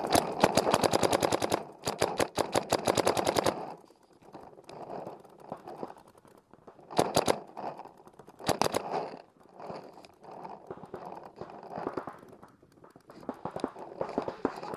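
Dye DM11 electronic paintball marker firing two long, rapid strings of shots over the first few seconds, then two short loud bursts about halfway through. Fainter volleys from other markers rattle across the field in between.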